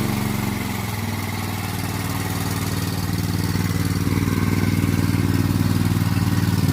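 A 24-volt truck parking generator with an ordinary muffler running steadily just after a remote start, growing slightly louder over the first few seconds. This standard model runs with noticeably loud noise and somewhat more vibration.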